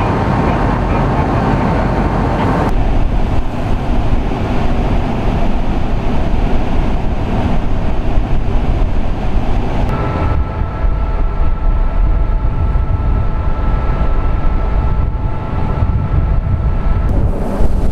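Loud, steady low rumble of vessel engines mixed with wind on the microphone, with a faint steady whine over it. The sound changes abruptly about 3 seconds in, about 10 seconds in, and again near the end.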